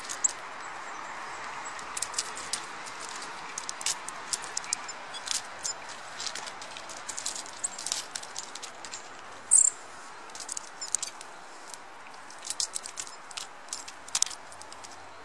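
Scattered short sharp clicks and scratches from a Eurasian red squirrel's claws on pine bark as it runs on the trunk, over a steady outdoor hiss. One brief high-pitched sound stands out about nine and a half seconds in.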